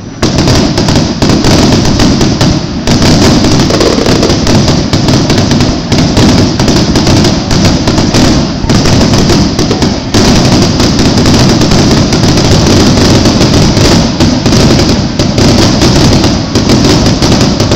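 Fireworks set off at close range: a dense, continuous barrage of shell launches, bangs and crackling. It starts suddenly and stays very loud throughout.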